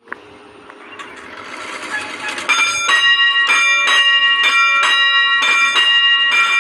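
A rushing noise grows louder, then about two and a half seconds in a bell starts ringing: quick repeated strikes, about two a second and loosely in pairs, keeping on to the end.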